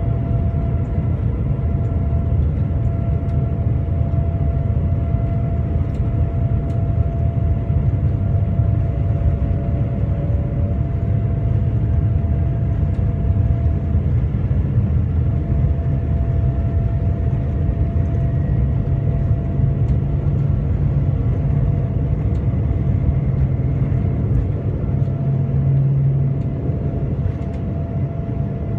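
Inside the cabin of a Boeing 787-9 climbing out after takeoff: the steady low roar of its GEnx-1B engines and the rushing air, with a faint steady hum above it. The roar eases slightly near the end.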